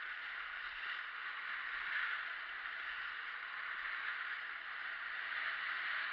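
Skis sliding over a groomed snow piste: a steady scraping hiss.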